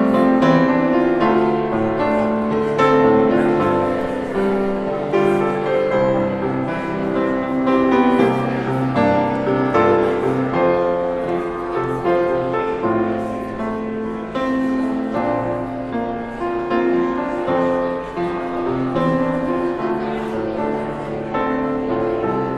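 Instrumental keyboard music: a slow prelude of held chords under a melody line.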